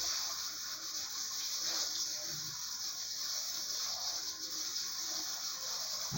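Shower water spraying steadily, a constant hiss.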